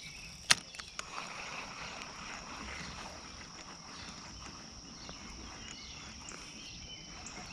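A sharp click about half a second in, then a couple of lighter clicks, over a steady high-pitched insect drone and faint outdoor ambience.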